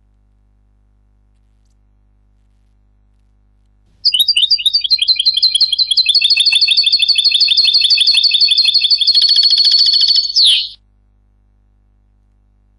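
A European goldfinch's song, played back from a recording: a rapid run of repeated high chirping notes that starts about four seconds in, lasts about seven seconds, and ends in a short slurred note.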